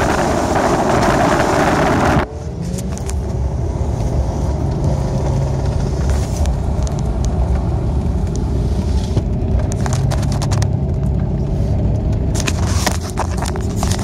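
Car driving on a snow-packed road, heard inside the cabin: a steady low rumble of engine and tyres, with a louder rushing noise for the first two seconds and some crackling clicks near the end.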